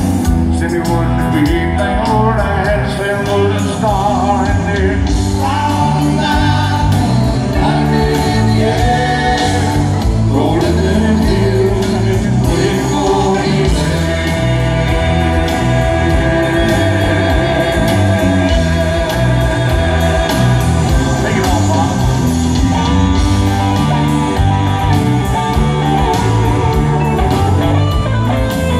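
Live southern rock band playing a song with a singer over guitars, bass and drums, heard through the venue's PA from the audience seats of a large covered amphitheatre.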